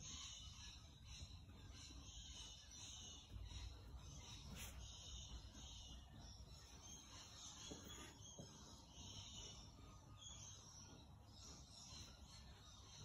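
Faint, repeated swishing of a wide flat bristle paintbrush dragged back and forth across a canvas in short blending strokes.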